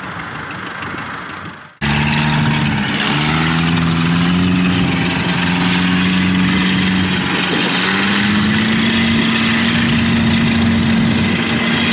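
Small engine of a tracked rice-hauling carrier idling, then, after a cut about two seconds in, running louder with its pitch rising as it pulls away loaded with sacks of rice, then holding a steady speed.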